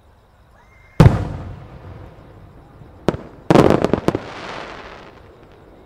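Large aerial firework shells bursting. There is one loud boom about a second in that fades slowly, then a sharp crack and a quick cluster of bangs a couple of seconds later, trailing off in a crackling hiss.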